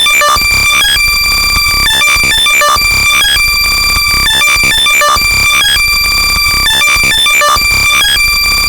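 Extremely loud, high-pitched synthetic tone with a stack of overtones, heavily distorted and compressed, and chopped by a slicer effect into a stuttering, irregular rhythm over a harsh noisy layer. It is an electronic sound made for locating lost AirPods.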